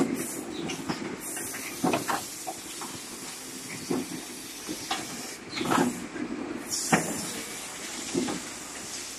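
Automatic aerosol-can case packer running: air-driven mechanisms knock and clack every second or so over a steady hiss of compressed air.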